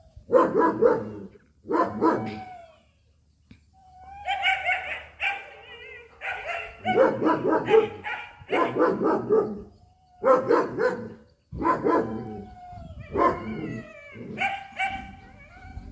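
A dog barking over and over in irregular runs, some barks drawn out into short high calls.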